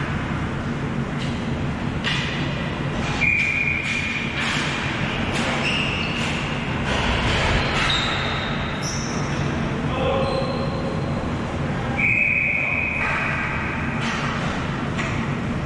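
Ball hockey game play: sharp clacks of sticks and ball, with several short high squeaks of about a second each, over a steady low hum.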